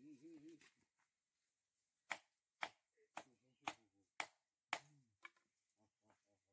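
Seven sharp chopping strikes of a blade on a small wooden block, about two a second, starting about two seconds in.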